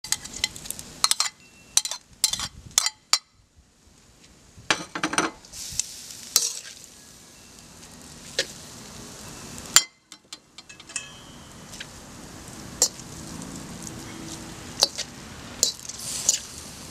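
Glass noodles with crab meat and vegetables stir-fried in a wok: a utensil clacks and scrapes against the metal at irregular intervals over a steady sizzle. The sound drops out briefly about ten seconds in.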